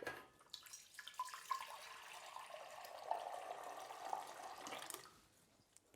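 Warm water from a tap running into a saucepan, with a tin of condensed milk standing in it. The water stops about five seconds in.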